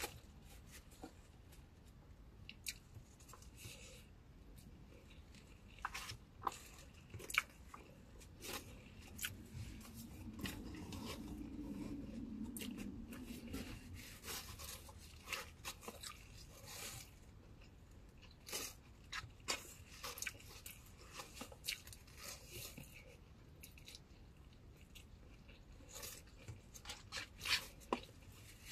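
A person eating takeout shrimp lo mein and fried rice: quiet chewing with scattered small clicks and crunches, and a low hum for a few seconds near the middle.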